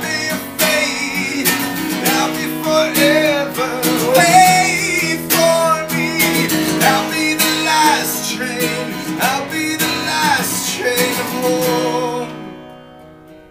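Acoustic guitar strummed steadily while a man sings over it. About twelve seconds in the strumming and singing stop, and the last chord rings and fades.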